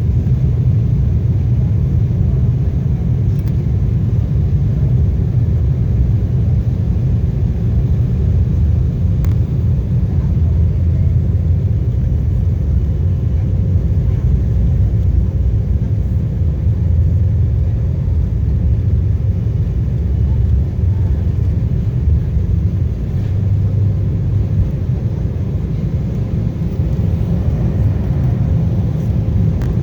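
Airliner engine and airframe noise heard from inside the passenger cabin: a steady low rumble with a faint steady hum above it.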